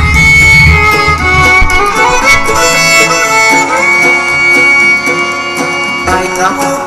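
Instrumental music with held melody notes over deep bass; the bass drops out about two seconds in.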